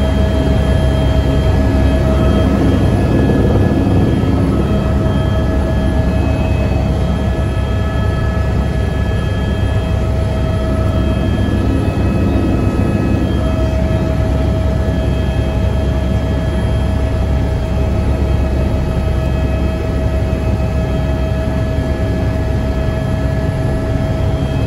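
Helicopter engine and rotor running, heard from inside the cabin: a steady, loud low rumble with several steady high tones over it.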